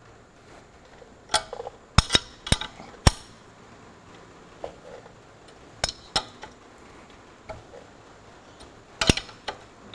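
Steel ring spanners clinking against the nut and threaded rod of a tool for pressing in tractor kingpin bushes as they are fitted, turned and repositioned: a series of sharp metal clinks, several close together in the first few seconds, a pair near the middle and another pair near the end.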